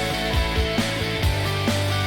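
Background music: rock with guitar and a steady drum beat.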